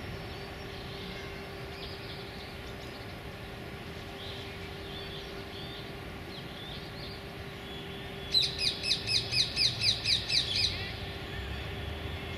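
A bird calls in a rapid series of about ten calls over roughly two seconds, each call falling in pitch, starting about two-thirds of the way in. Before that, a few faint calls come over a steady background hum.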